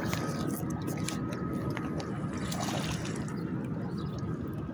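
River water splashing and lapping against a wooden seawall as a hooked walleye thrashes at the surface while it is reeled in, with scattered small splashes over a steady low noise.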